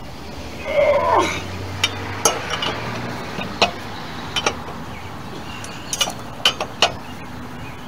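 Metal clinks and knocks of a four-way lug wrench being fitted and worked on the lug nuts of a steel car wheel, with a short grunt about a second in. The nuts are seized and will not break loose.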